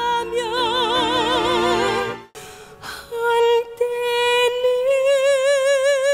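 A woman singing in an operatic musical-theatre style, holding a long note with wide vibrato that cuts off abruptly about two seconds in. After a short quieter gap, a woman's voice begins a new song on another long, vibrato-laden held note.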